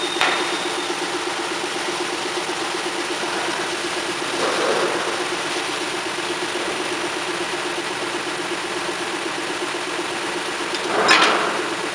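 Cormak S-280R semi-automatic metal-cutting band saw running with a steady hum. Three short swells of noise come through it: one just after the start, a weaker one about four and a half seconds in, and the loudest near the end.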